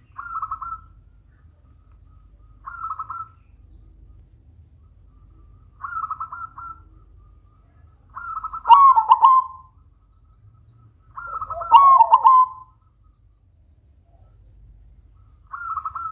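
Caged silver zebra dove (perkutut) cooing: short, quick stuttering coo phrases every few seconds, with two longer, louder song phrases in the middle that fall lower in pitch at their end.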